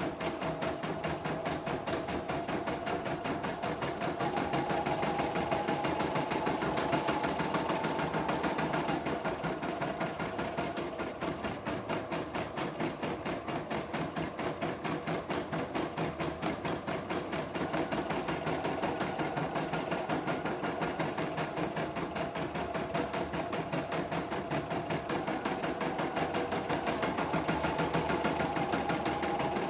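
CNY E960 portable computerized embroidery machine stitching a design: a rapid, even run of needle strokes over the steady hum of its motor. A higher whine comes in about four seconds in and again near the end as it stitches.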